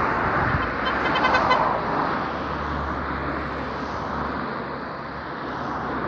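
Road traffic on a two-lane highway: cars driving past as a rush of tyre and engine noise, loudest about a second in, then a steadier, slightly fainter flow.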